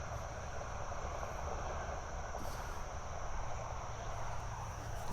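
Steady outdoor ambience: a continuous high-pitched insect drone over a low rumble of wind on the microphone.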